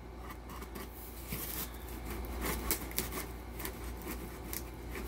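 A small knife scraping and slicing through packing tape on a cardboard box: a run of faint, irregular scratchy ticks and scrapes.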